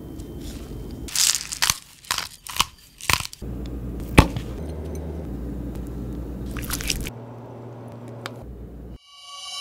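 Crisp crunching and sharp clicks from handling a sliced raw cucumber, a quick run of them and then one sharp click a second later. A steady low hum follows for a few seconds.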